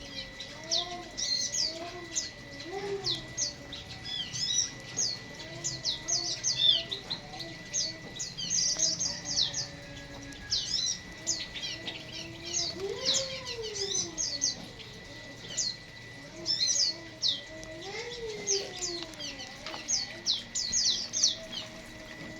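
Many small aviary birds chirping busily in rapid short high notes, over a lower call that rises and falls in pitch, several times.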